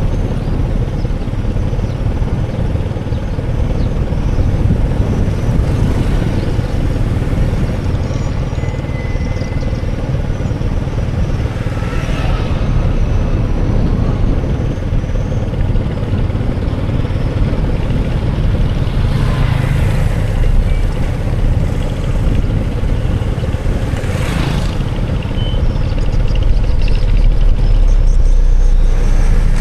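Steady low rumble of road vehicle noise, with brief louder moments about twelve, nineteen and twenty-four seconds in.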